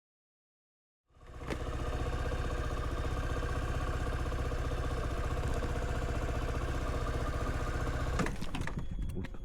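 Suzuki V-Strom 250SX single-cylinder engine running steadily at constant speed. It comes in abruptly about a second in and cuts off suddenly near the end.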